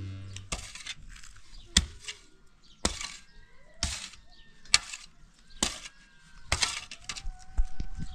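Metal shovel blade striking and scraping into stony dirt, about eight sharp strokes roughly a second apart.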